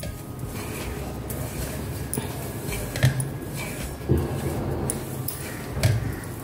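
Hands rubbing and mixing crumbly flour with ghee in a stainless steel bowl: a steady soft rustling, with a few light knocks against the bowl about three, four and six seconds in.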